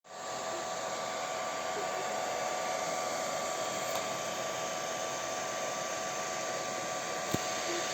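Ender 3 V2 3D printer running a print: a steady fan whir with two faint steady tones, and one short click a little past seven seconds in.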